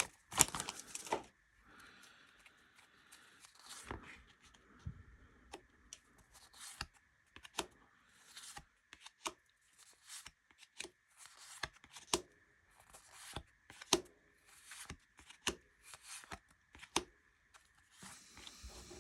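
Topps Heritage baseball cards being handled and set down one by one on a table as a stack is sorted, making short light clicks and slaps about one or two a second.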